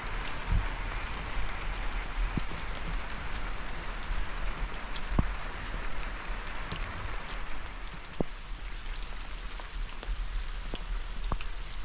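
Rain falling steadily: an even hiss with scattered sharp drop ticks.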